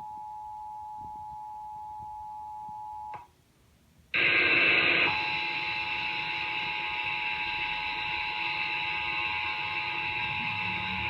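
Emergency Alert System two-tone attention signal, two steady tones sounding together, cuts off with a click about three seconds in. After a second of silence a loud hissing rush of static starts, loudest for about a second. It settles into steady hiss with the same two-tone attention signal sounding through it.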